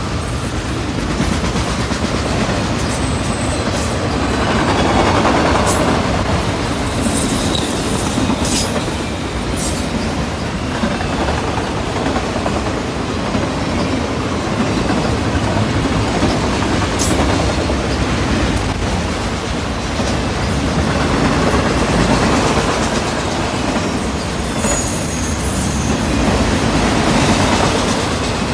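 Freight train's autorack cars rolling past close by: a steady rumble of steel wheels on rail with scattered sharp clicks and a couple of brief high-pitched wheel squeals.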